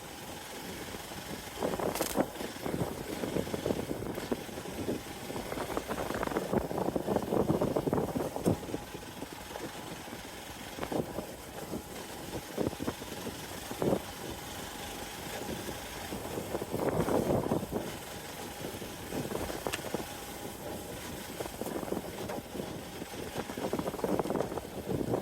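Hero XPulse 200 Pro's single-cylinder engine running at low speed, swelling and easing off several times, with occasional sharp knocks.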